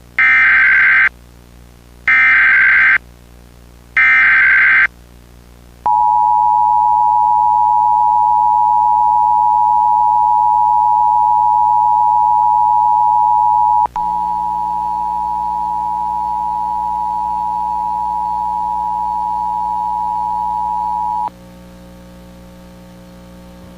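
Emergency Alert System tones: three one-second bursts of SAME header data, about a second apart, then the two-tone attention signal (853 and 960 Hz together) held steady for about fifteen seconds. Halfway through the attention signal it drops a little in level and a low hum comes in, and the hum stays on alone after the tone stops.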